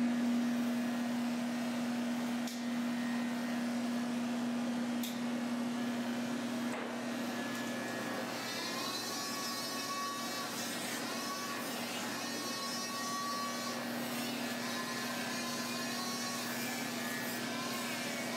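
Corded electric dog-grooming clippers running with a steady hum while shaving down a schnauzer puppy's matted coat; the hum is strongest in the first several seconds.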